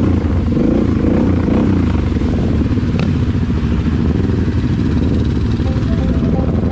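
Kawasaki KFX 700 ATV's V-twin engine running at low speed, with other quads and a dirt bike running close by. A single sharp click about three seconds in.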